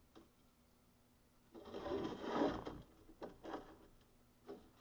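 Welding magnets being fitted against the steel bars: about a second of scraping and rattling metal, then a few light clicks.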